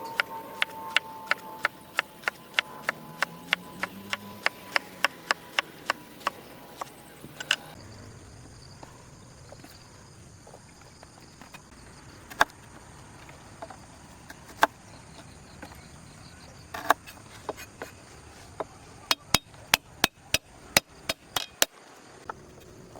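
Repeated sharp chopping strikes on wood, about three a second for the first seven seconds or so, then a few scattered single strikes and a quick run of them near the end.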